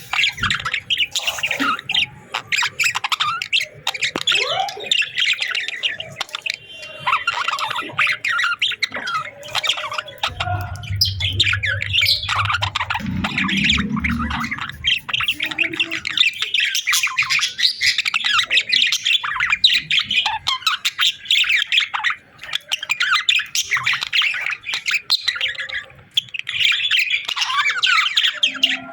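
Pet budgerigars chirping: a dense, unbroken run of quick, high chirps. A low hum sounds beneath them for a few seconds in the middle.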